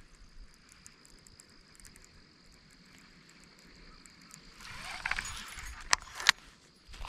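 Quiet for about four seconds apart from a faint steady high tone. Then a baitcasting reel is cranked fast to bring in a spinnerbait, a rough clicking run lasting a couple of seconds, with two sharp clicks near the end.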